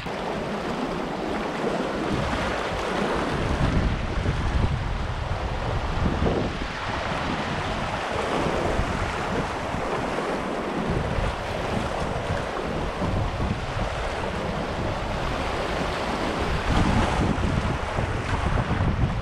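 Wind buffeting the microphone in uneven gusts, over the wash of choppy water.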